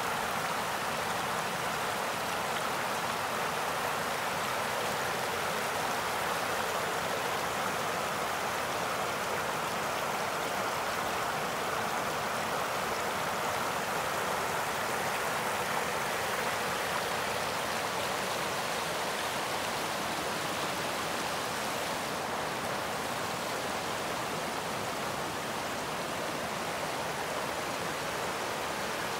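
River water rushing over a low weir and on across the rocks below it: a steady, unbroken rush with no change in rhythm.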